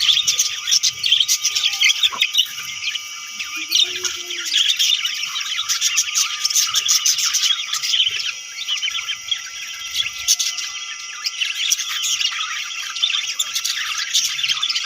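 A flock of budgerigars chirping together: a dense, continuous chatter of many short high calls overlapping one another.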